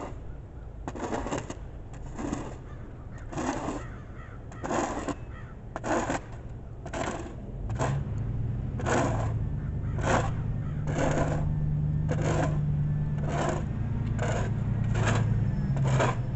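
Snow shovel scraping along a sidewalk in short, harsh strokes, roughly one a second. From about halfway through, a vehicle's engine hums low and grows louder as it draws near.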